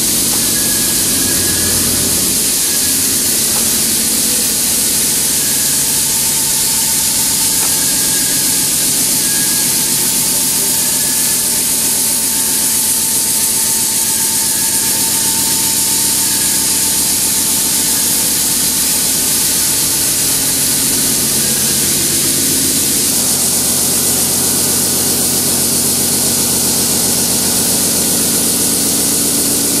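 A Giddings & Lewis RT1250U horizontal boring mill running, a steady machine noise with a strong hiss. A thin steady tone runs through the middle, and the low hum shifts about three-quarters of the way through.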